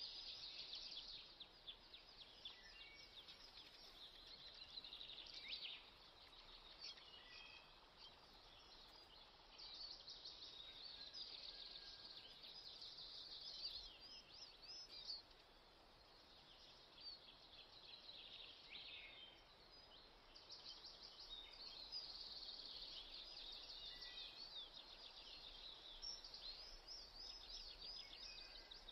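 Chopped onion frying in oil in a pan: a faint sizzle with crackling that swells and fades in patches.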